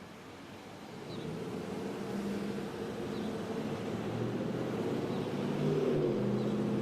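A vehicle engine running and growing steadily louder over several seconds, with faint bird chirps now and then.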